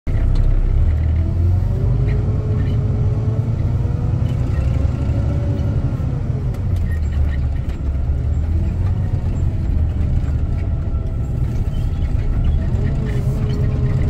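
Heavy truck's diesel engine heard from inside the cab, rumbling low while driving slowly, with a whine that rises in pitch, drops about six seconds in, and rises again near the end. Light clicks and rattles from the cab on the rough road.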